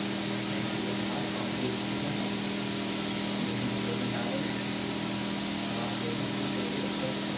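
Steady machine hum, an electric motor or blower running without change, with a constant low drone under a hiss.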